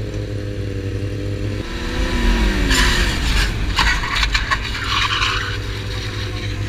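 Sportbike engine running steadily. After about a second and a half the sound changes abruptly and the engine note falls away. Then loud bursts of metal scraping along asphalt come through the middle, as a wheelieing motorcycle's tail drags on the road throwing sparks.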